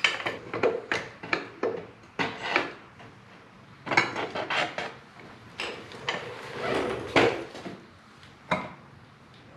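Metal clinks, knocks and rattles of a motorcycle rear wheel, drive chain and axle parts being handled as the wheel is dropped out of the swingarm. Quick sharp clicks come first, then a short lull, then more clusters of clatter.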